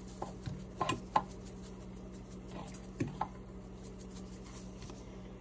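A few light taps and clicks of a spice shaker being shaken over a baking dish as dried basil is sprinkled on, in two short clusters about a second in and around three seconds in, over a steady low hum.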